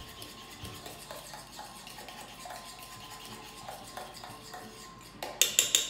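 A fork stirring and mashing egg-yolk filling in a small metal bowl, a soft steady scraping. Near the end comes a quick run of sharp, loud clinks of the fork against the bowl.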